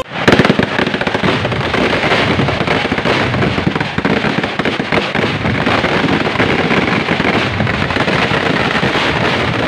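Firecrackers going off at ground level in a dense, unbroken barrage of rapid bangs, with the loudest bang a moment after it starts.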